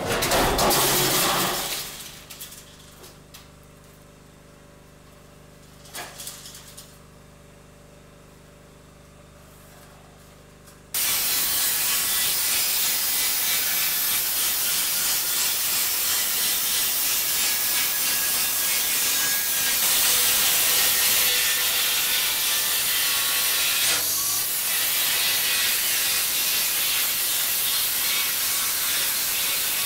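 A cut-out sheet of corrugated steel falls away with a loud clatter that dies down over a couple of seconds. A generator engine then runs with a low steady hum. About eleven seconds in, an angle grinder's cutting disc bites into the steel container wall, a loud steady hiss that carries on.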